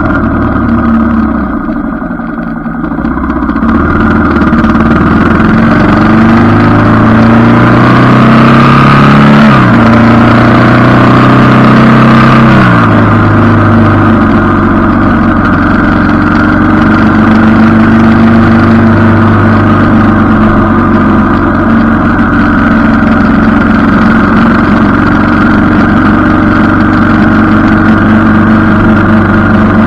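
Motorcycle engine on the move, heard with wind rush: it picks up speed, its pitch dropping sharply about nine seconds in and again about three seconds later as it shifts up, then holds a steady cruising note.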